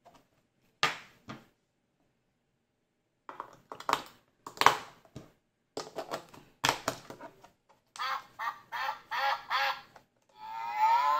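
Plastic clicks and knocks as batteries are pressed into a children's electronic animal-sound toy, then the toy plays a recorded duck quacking, about five quacks in a row, and near the end starts a long recorded cow moo.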